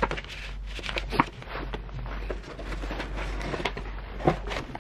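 Paper and cardboard rustling with a few sharp light knocks, as a paper envelope and a ribbon-tied cardboard gift box are handled and lifted out of a cardboard shipping box. The loudest knocks come about a second in and near the end.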